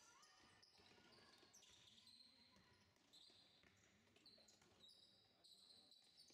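Faint sounds of basketball play in a gym: sneakers squeaking on the court floor in short high chirps, and the knock of a basketball bouncing now and then.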